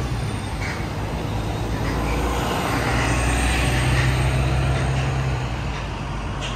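City road traffic with a heavy vehicle's engine hum passing, growing to its loudest about halfway and then fading.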